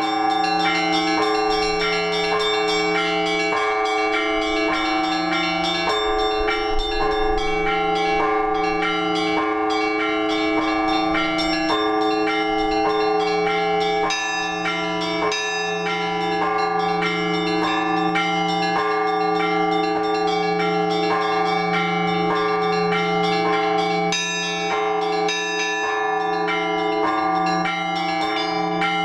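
Russian Orthodox church bell ringing: several bells of different pitches are struck by one bell ringer in a continuous pattern. Quick strikes of smaller, higher bells sound over a steady deeper ring.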